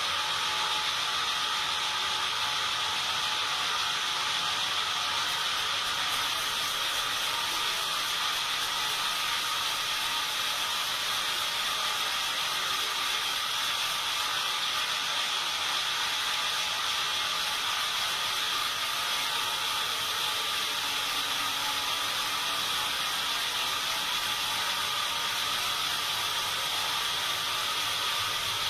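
Sawmill saw running steadily: a constant, high-pitched mechanical noise with no breaks.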